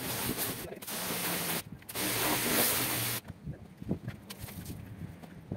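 Pressure washer spraying: a loud, high hiss that stops briefly about a second and a half in, resumes, and cuts off just after three seconds. Scattered light knocks and scrapes follow.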